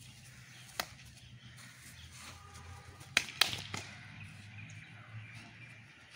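Sharp slaps of hands and forearms meeting as strikes are blocked in a kung fu sparring drill: one slap about a second in, then three in quick succession about three seconds in, the second of those the loudest.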